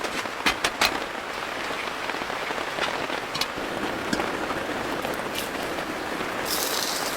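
Steady rain falling, with separate heavy drops ticking on a surface, a few louder ones in the first second, and a short hiss near the end.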